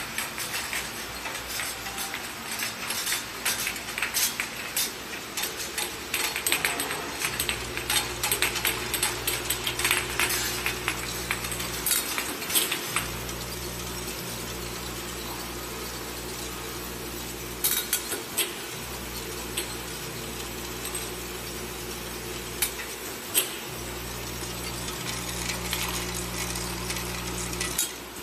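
Rapid clicks and clinks of a capsule bottling line, then the low hum of a capsule counting machine's vibratory feeder, switching on and off in spells of a few seconds, with capsules clicking along its grooved tray.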